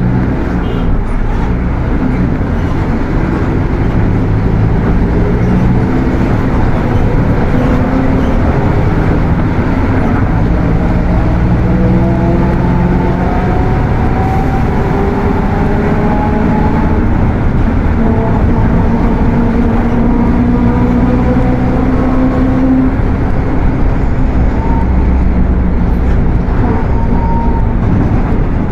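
Mercedes-Benz OF 1721 front-engine diesel bus under way, with loud transmission noise over the engine's low rumble. The whine rises in pitch several times as the bus gathers speed, dropping back between rises.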